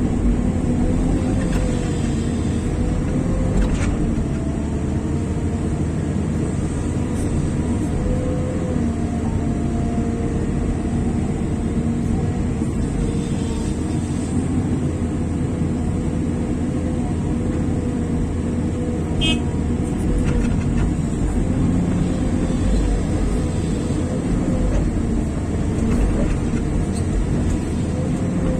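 Heavy earthmoving machinery, an excavator working with dump trucks, running steadily: a constant low diesel drone with a faint wavering whine above it.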